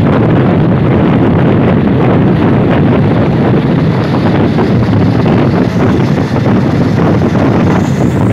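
Steady rush of wind buffeting the microphone held out of the window of a moving passenger train, over the running noise of the train on the rails.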